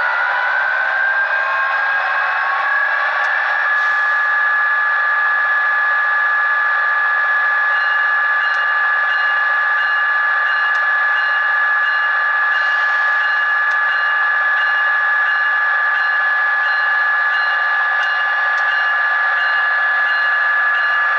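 HO-scale Kato F40PH model locomotive's electric motor and gear train whining as it runs along the track, the pitch rising over the first few seconds and then holding steady, with faint regular ticking underneath.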